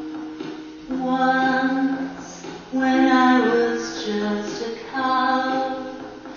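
A woman singing into a handheld microphone over a recorded backing track of sustained keyboard chords, in three phrases of held notes starting about a second in, near three seconds and around five seconds.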